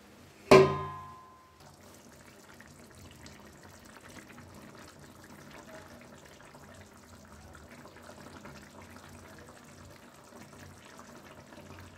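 A steel plate used as a lid clangs once against a steel kadai about half a second in, ringing briefly. After that the watery potato and ivy gourd curry simmers with a faint, steady bubbling.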